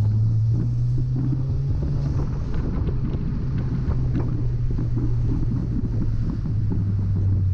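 Car engine pulling steadily while driving, a low even drone with road and wind rush over it. It runs smoothly with no misfire heard, on freshly fitted spark plugs.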